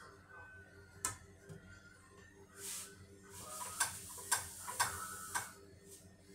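Spatula scraping and tapping against a frying pan while pancakes fry, with a cluster of sharp clicks and scrapes in the second half.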